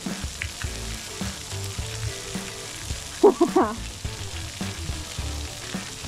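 Splash pad water jets spraying with a steady hiss. A high voice calls out briefly about three seconds in.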